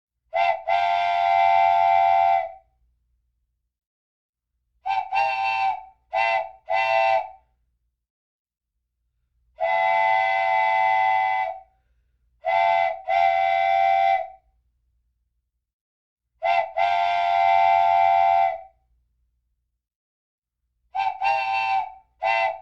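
A loud horn sounding in repeated groups of blasts, mostly a short blast followed by a long one of about two seconds, with dead silence between the groups.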